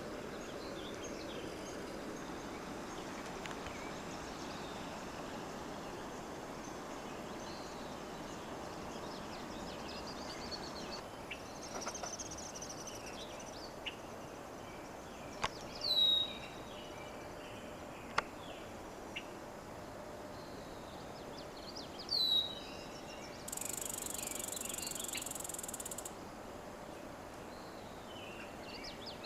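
Outdoor bird chorus over a steady natural background hiss: scattered faint bird calls, with two loud calls that drop in pitch about 16 and 22 seconds in. A few sharp clicks, and a high insect-like buzz for about two and a half seconds near the end.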